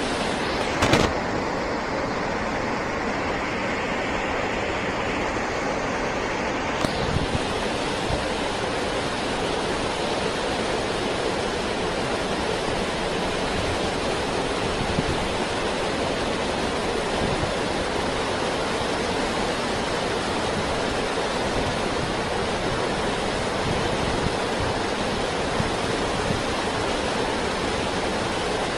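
Steady rush of a glacial mountain river, the Kedar Ganga, running through the valley below, with a short knock about a second in.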